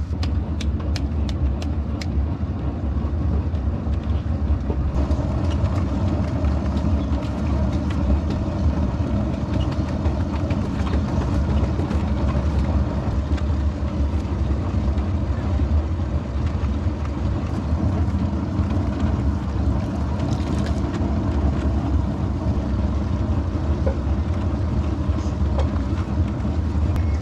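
Steady engine and road noise of a moving motor vehicle: a constant low rumble with no change in pace.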